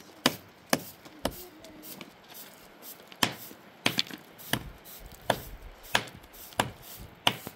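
A series of about ten sharp chopping strikes, one roughly every two-thirds of a second, with a pause of about two seconds after the third.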